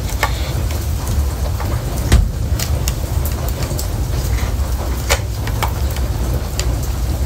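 Scattered clicks and scrapes of a plastic smoke and carbon monoxide alarm being handled and prodded as someone tries to pry its batteries out, the loudest click about two seconds in, over a steady low rumble.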